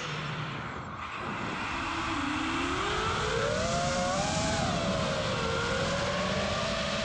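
FPV quadcopter's brushless motors and propellers whining. The pitch climbs over a couple of seconds with the throttle, then settles and holds, over a rough rush of wind noise. This quad is flying with a bad motor that gives it a weird noise and vibration.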